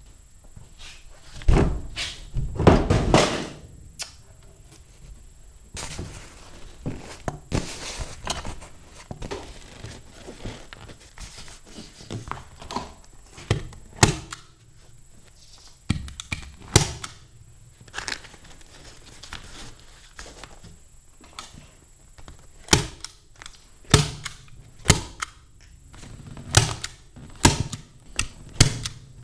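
Hand staple gun firing staples through a vinyl seat cover into an OSB seat board: sharp snaps, one every second or two and coming faster near the end. Heavier thumps a couple of seconds in come from handling the board on the golf cart seat base.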